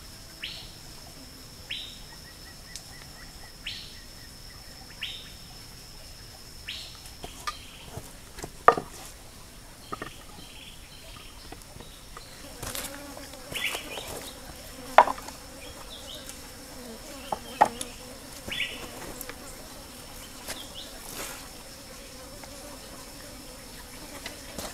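Forest ambience: a steady high-pitched insect drone, with a bird repeating a short falling call about five times in the first part. Later come a few sharp snaps and clicks, the loudest sounds here.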